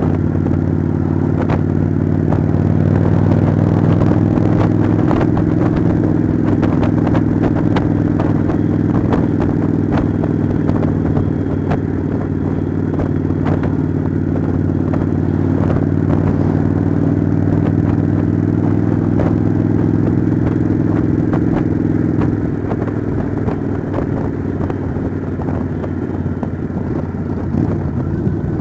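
Kawasaki Vulcan V-twin motorcycle engine running steadily at cruising speed, with wind and road noise and scattered clicks. The engine eases slightly in the last few seconds.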